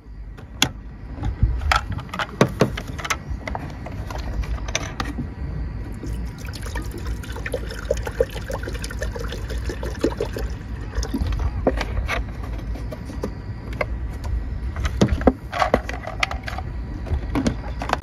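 Water being poured into an electric pot (electric kettle) to refill it, with sharp clicks and knocks from the lid and container being handled. A steady low rumble runs underneath.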